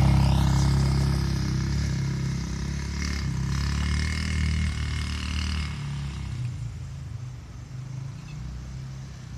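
Small go-kart engine running as the kart pulls away, the sound fading steadily as it moves off into the distance.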